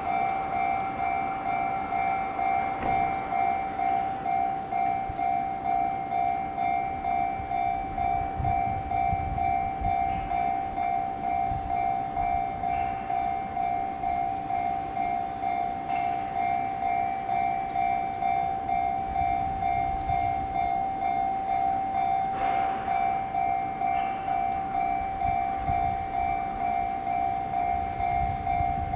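Japanese railway level-crossing alarm, the JR standard electronic bell tone pitched slightly high, ringing on without pause in quick, even repeats. Trains rumble past over the crossing at times beneath it.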